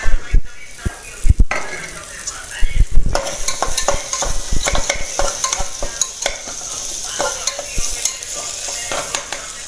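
Metal spatula scraping and knocking against the bottom and sides of an aluminium pressure cooker while onion, tomato and spices are stirred and fried in oil, over a steady sizzle. The loudest knocks come in the first three seconds.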